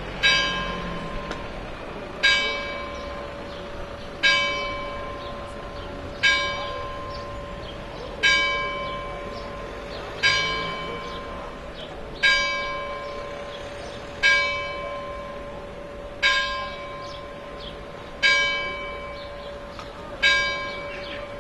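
A single large tower bell tolling slowly, one stroke about every two seconds, each stroke ringing on with a steady hum into the next.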